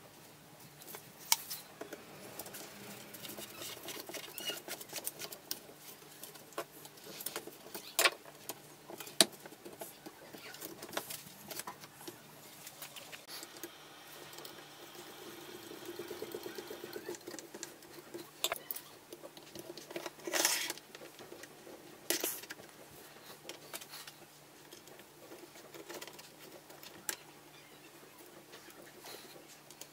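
Handling noise of metal airgun parts being assembled on a workbench: irregular small clicks, taps and scrapes as parts are fitted and screws are turned with a screwdriver, with a short buzzing stretch in the middle and a few sharper knocks.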